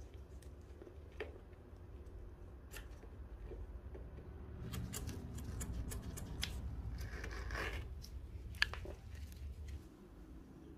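Scissors snipping and trimming carpet-type fabric lining: scattered short cuts and rustles, busiest in the second half, with one sharp click near the end.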